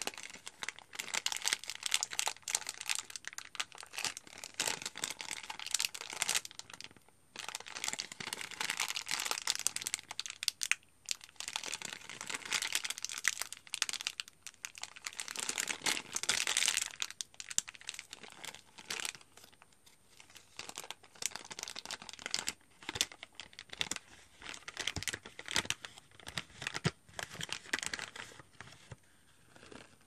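Crinkling of a cardamom spice packet's wrapping as fingers squeeze and rub it, in dense crackly stretches with short pauses.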